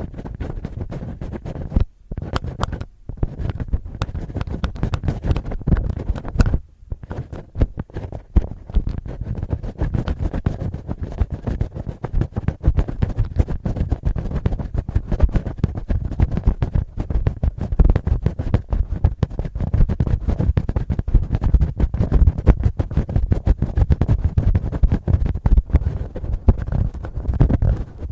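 Fingertips and fingernails scratching and rubbing right on the microphone as ear-cleaning ASMR: a dense, fast crackle of close scratches with a heavy low rumble. It pauses briefly about two, three and seven seconds in.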